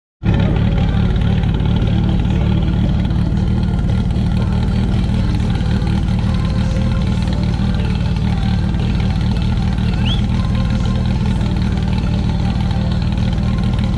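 Portable fire pump's engine running steadily, with a strong low hum close by and a short high rising whistle about ten seconds in.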